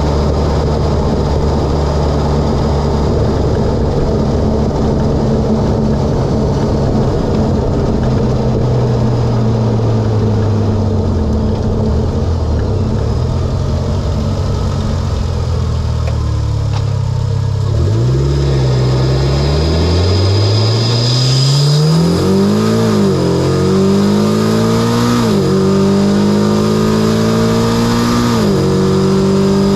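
Mitsubishi Lancer Evolution X's turbocharged 2.0-litre four-cylinder, fitted with an Injen intake and HKS exhaust, running steadily, then its revs falling as it eases off. From about 18 s it accelerates hard, the revs climbing and dropping again at three quick upshifts, with a brief high whistle as the revs climb in the first gear.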